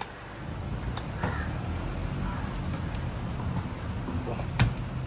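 Outdoor street-market ambience: a steady low hum and rumble with faint distant voices, broken by a few sharp clicks or knocks, the loudest near the end.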